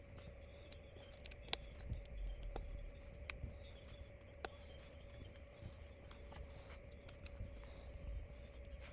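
Faint, scattered sharp clicks and taps from small tools and parts being handled during an iPad repair, over a faint steady hum.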